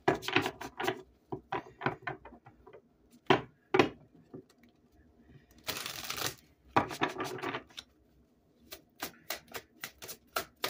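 A deck of oracle cards shuffled by hand: short rustling bursts of cards sliding over one another, mixed with sharp clicks of card edges tapping and flicking, and a quick run of clicks near the end.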